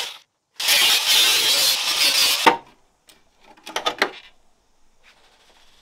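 Angle grinder with a cutting disc slicing through the body panel around a vehicle's wheel arch for about two seconds, ending with a knock. A few light knocks follow as the cut-off panel is handled.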